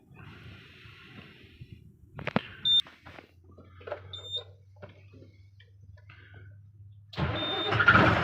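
Ashok Leyland truck's diesel engine cranking and starting about seven seconds in, after a quiet stretch with a few clicks, two short high beeps and a low steady hum. The engine now starts because the wiring fault that cut the EDC17 engine computer's main positive supply has been dealt with.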